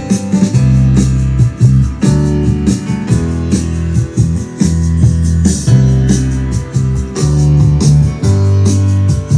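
A recorded song playing from a CD through an Onkyo TX-SR606 AV receiver and its loudspeakers, with a strong bass line and a steady beat.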